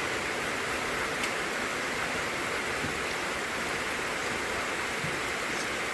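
Heavy rain falling steadily, an even rushing hiss.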